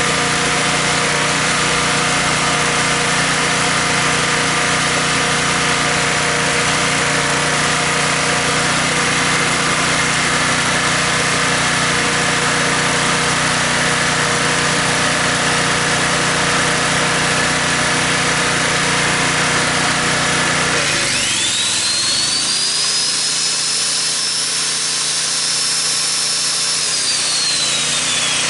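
Honda EG1400 portable generator running steadily just after starting, its carburettor and fuel valve freshly cleaned of the clog that stopped it. About two-thirds of the way through the sound changes: the low engine tone thins out and a high whine rises, holds, then falls away near the end.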